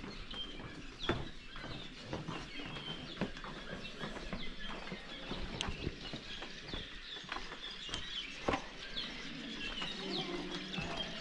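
A flock of cave swallows calling, many short falling chirps overlapping without pause. A few sharp taps stand out, the loudest about a second in and again past the middle.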